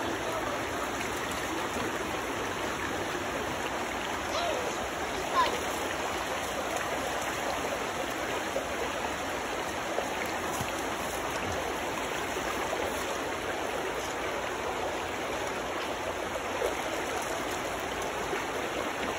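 Shallow river water running over rocks: a steady, even rush, with one brief louder sound about five seconds in.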